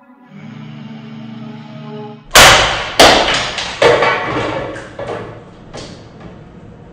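Background music: a held synth chord, then about two seconds in a loud beat starts with heavy, irregularly spaced percussion hits.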